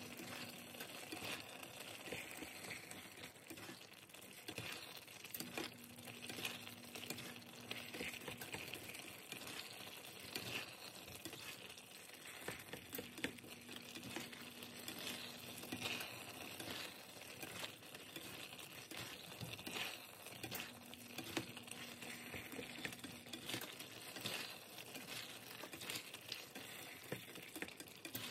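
Ground chicken in a thin sauce bubbling at a boil in a cast iron skillet as a cornstarch slurry thickens it, with a plastic spatula stirring and scraping through it; faint crackling and small clicks.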